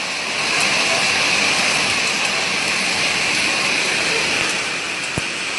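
Steady hiss of a severe hailstorm, with hail and rain falling and floodwater rushing down a hail-covered street. A few sharp ticks, likely hailstones striking, come near the end.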